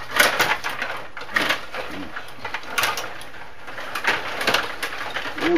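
Stiga rod hockey table in play: irregular sharp plastic clacks and knocks as the rod-turned players strike the puck and the rods rattle in their slots.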